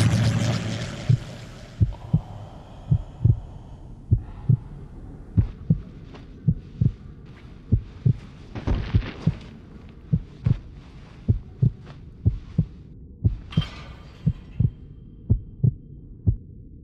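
Heartbeat sound effect: low double thumps in a steady lub-dub about once a second over a faint hiss. A rushing wash fades out over the first two seconds, and a brief rushing noise comes in twice.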